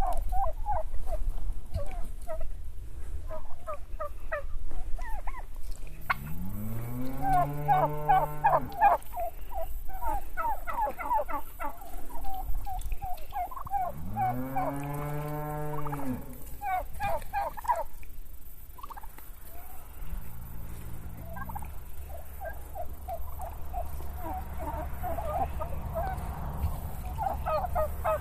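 A flock of domestic turkeys gobbling, the toms' rapid rattling calls overlapping again and again. Twice, about seven and fifteen seconds in, a long lower call rises and falls in pitch for about two and a half seconds over the gobbling.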